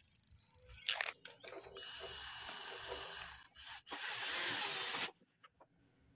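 A small powered screwdriver runs as it drives a screw into a wooden frame, in two runs of about a second and a half and about a second. A couple of sharp knocks come about a second in.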